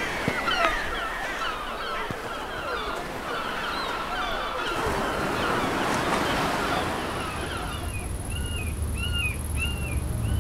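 A flock of gulls calling over one another, many squealing calls overlapping, over a low rush of surf. About eight seconds in, the flock fades and a single bird repeats a short arched call about twice a second over a steady high-pitched tone.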